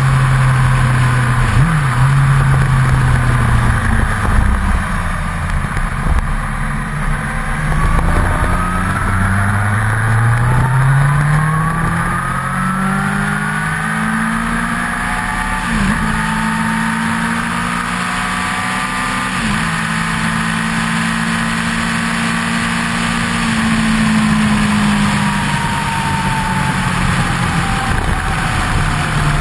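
Kawasaki motorcycle engine under way on the open road. Its note climbs steadily for several seconds midway, drops at a gear change, then holds at a steady cruise and eases off near the end. Wind rush over the fairing runs under it throughout.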